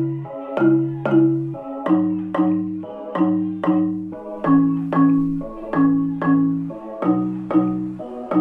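Music played through Canton Xi-270 two-way loudspeakers and picked up by a microphone in the room: a melody of short struck notes, about two a second, each fading quickly.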